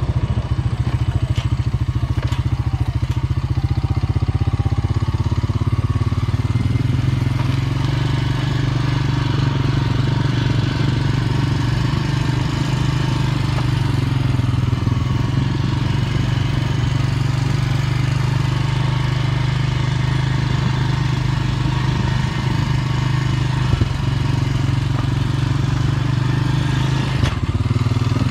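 ATV engine running steadily while the four-wheeler is ridden along.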